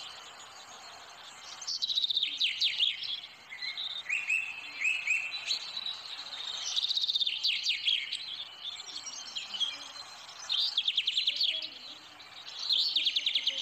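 A small songbird singing in bursts of rapid chirps and falling trills, one burst every couple of seconds.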